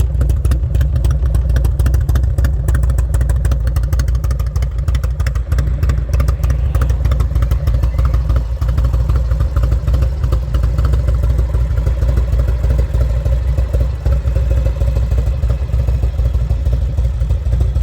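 1995 Harley-Davidson Road King's Evolution V-twin idling steadily through Vance & Hines pipes with turn-down tips, loud and close.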